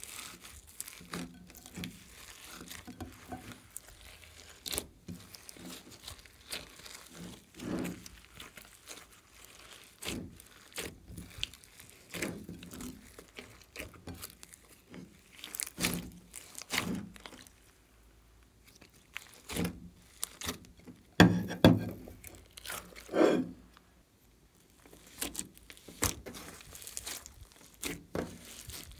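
Glossy white slime mixed with glitter and sequins being squished, folded and kneaded by hand: irregular sticky squishes and sharp crackles, loudest a little past the middle.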